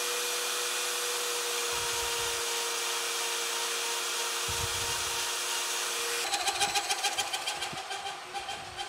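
Metabo die grinder mounted on a lathe, running with a steady whine while its small grinding wheel is dressed with a hand-held stone. About six seconds in, the wheel starts grinding the outside faces of a six-jaw chuck's jaws: a rhythmic rasp about five times a second as each jaw passes the wheel.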